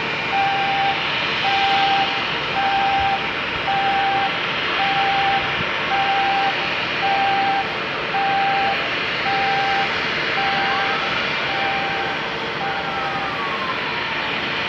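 Jet airliner engines running steadily, an Airbus A321 about to taxi, with a repeating electronic beep about once a second over them. The beeping stops a little before the end.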